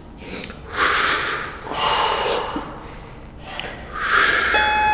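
Heavy breathing from people doing push-ups, three forceful breaths. Near the end an interval timer's electronic beep starts and holds a steady tone, marking the end of the 20-second work interval.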